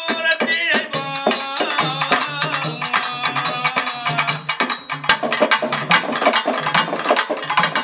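Tamil folk drums, an udukkai hourglass drum and stick-beaten pambai drums, playing a fast, driving rhythm. A man's voice sings over the drumming.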